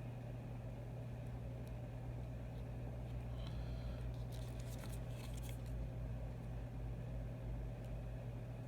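Steady low electrical hum, with a few faint clicks and two short scratchy scrapes of small phone parts being handled.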